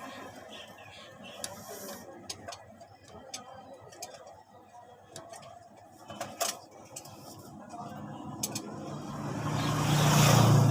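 Scattered light metallic clicks and taps of hand tools and engine parts on a truck engine being worked on. Near the end a motor vehicle's engine swells up to the loudest sound.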